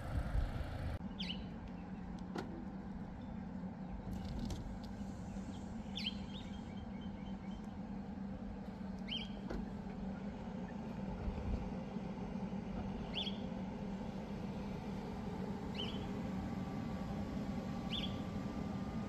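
A steady low hum, with a bird chirping briefly every two to four seconds.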